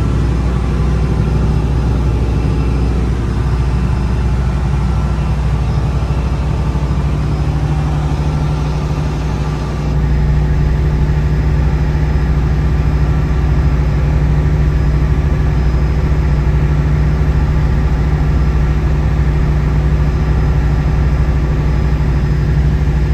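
Lobster boat's inboard engine running steadily under way, heard from inside the wheelhouse. The level dips briefly just before ten seconds in, then holds steady again.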